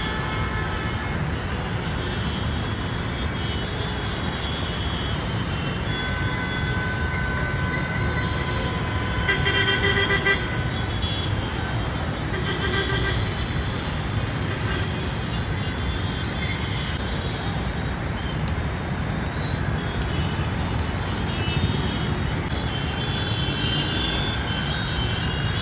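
Road traffic rumbling steadily, with vehicle horns honking several times: one horn held for a couple of seconds about six seconds in, then louder short honks a little later.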